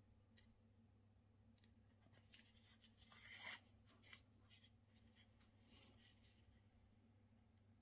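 Near silence: faint rustling of embroidery thread being drawn through the wrapped surface of a temari ball, with one longer hiss about three seconds in, over a steady low hum.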